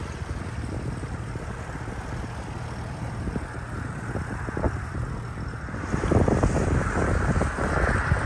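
Outboard motor of a small cruiser passing close by, a steady low engine hum as it moves away. Wind buffets the microphone, growing louder about six seconds in.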